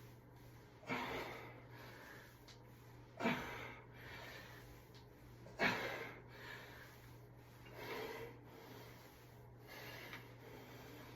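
A person breathing hard through the nose and mouth during bodyweight exercise, with a sharp forceful exhale about every two and a half seconds in time with the repetitions.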